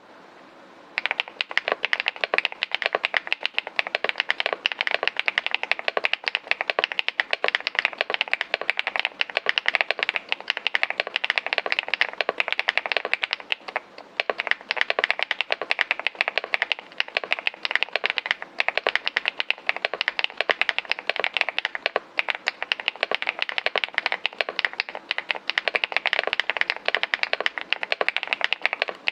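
Fast, continuous typing on a Leobog Hi75C mechanical keyboard with MMD Princess V3 linear switches: a dense stream of key presses starting about a second in, with a couple of brief pauses midway.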